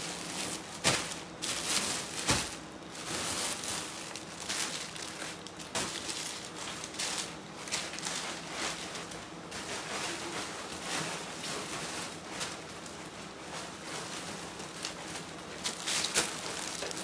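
Clear plastic garment bags rustling and crinkling as bagged clothes are sorted through and picked up, with irregular sharper crinkles, over a faint steady hum.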